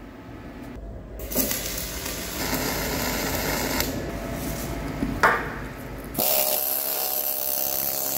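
MIG welding arc crackling and hissing for several seconds along the bucket seam. About six seconds in, a pneumatic needle scaler takes over, hammering on the weld with a fast, steady buzzing rattle to clean off spatter and slag.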